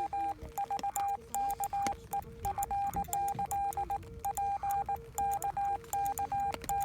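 Morse code (CW) tones from an amateur radio receiver, keyed in a run of long and short elements. A fainter, lower tone is keyed alongside the louder higher one. It is the signal of a 6 cm (5.7 GHz) rain-scatter contact.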